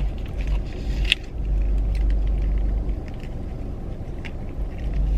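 Steady low vehicle rumble with a few faint clicks, one sharper tick about a second in.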